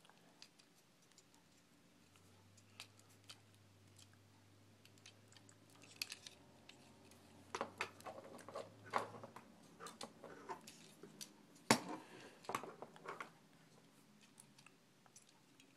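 Quiet, scattered plastic clicks and small snaps as a Transformers action figure's joints and parts are moved and folded by hand, busiest in the middle, with one sharper click about three-quarters of the way through.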